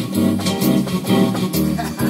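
Digital keyboard playing an upbeat, jazzy tune: a lead line and chords over a moving bass line and a steady beat of about two strikes a second.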